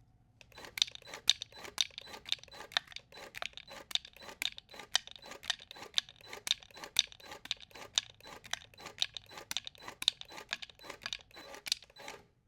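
Plastic or foil packaging of a Pokémon card product being crinkled and torn open by hand: a quick, uneven run of crisp crackles that stops suddenly near the end.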